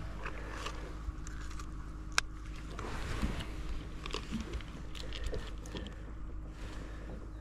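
Small clicks and rustling as a crappie is handled on a handheld digital fish scale for weighing, with one sharp click about two seconds in.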